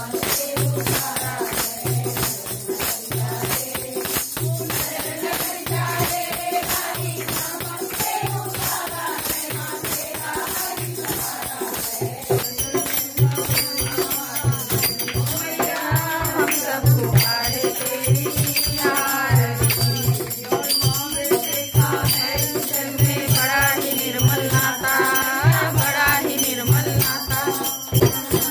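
Women singing a Hindu devotional kirtan together in chorus, over steady jingling hand percussion and a regular low beat.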